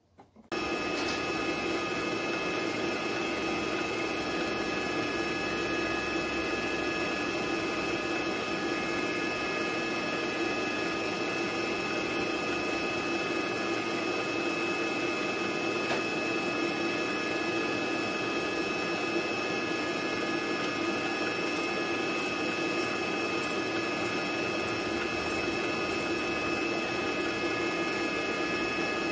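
Kenwood stand mixer's motor running steadily with a constant whine, driving its pasta-cutter attachment as sheets of dough are cut into noodles. It comes on abruptly about half a second in.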